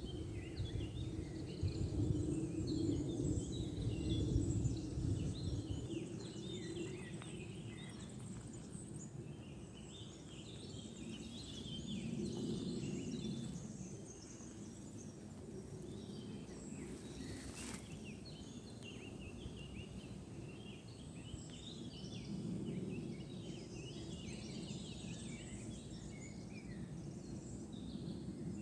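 Many small birds chirping and singing together over a low rushing noise that swells and fades a few times, with a single brief click partway through.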